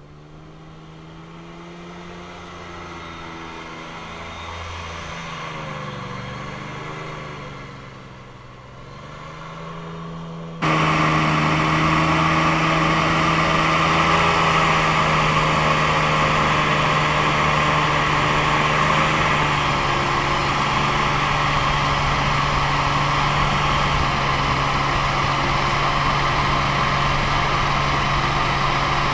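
Airboat engine and air propeller running. The sound starts moderate and grows louder with the engine pitch dipping and rising. About ten seconds in it jumps abruptly to a much louder, steady drone of the engine and propeller heard on board while under way.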